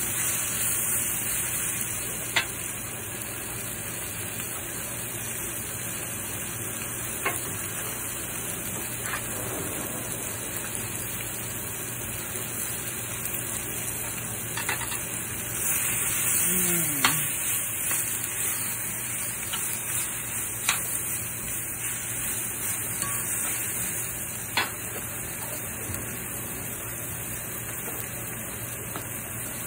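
Baby pak choi and pepper strips sizzling in oil in an enameled cast-iron skillet, a steady high hiss, with a few sharp clicks of metal tongs against the pan.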